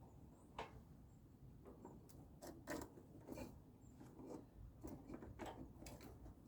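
A series of faint, irregular clicks and light knocks, the loudest a little under three seconds in.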